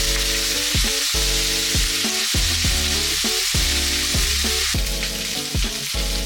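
Food sizzling steadily as it fries in a pan, under background music with a slow repeating pattern of notes.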